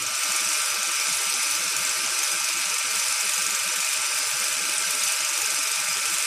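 Old-film sound effect: a steady hiss with an irregular crackle underneath, at an even level.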